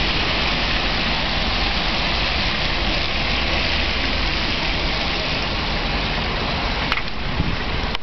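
Steady hiss of street traffic on a slushy, snow-covered road: car tyres swishing through wet snow over a low engine rumble. Two faint clicks come near the end.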